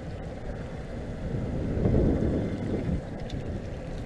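Wind buffeting the microphone on a small fishing boat, a steady low rumble that swells into a stronger gust about two seconds in.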